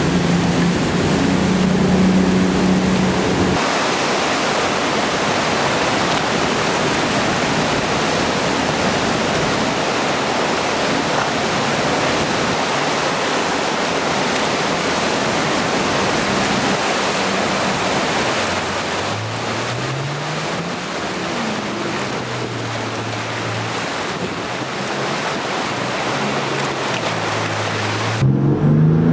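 Rushing whitewater of a big river rapid, with a jet boat's engine running under it: its note is clear for the first few seconds and rises and holds again in the second half as the boat powers through the waves. Near the end the sound cuts abruptly to a louder, steady engine note.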